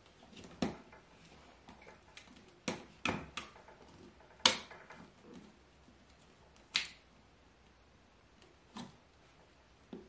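Short hard plastic clicks and knocks, about six of them at irregular intervals, the loudest about halfway through, as a dog force dryer's corrugated hose coupling is pushed and twisted onto the dryer's outlet.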